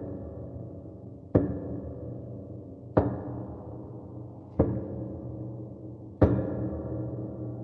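Horror-style door-knocking sound effect: single heavy, deep knocks repeated evenly about every second and a half, four of them, each with a long low ringing tail that slowly fades.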